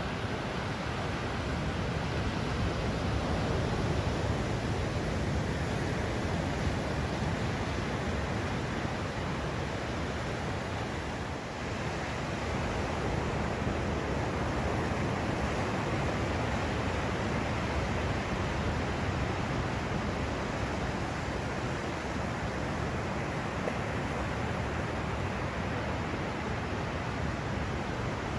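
Steady wash of ocean surf with wind on the microphone.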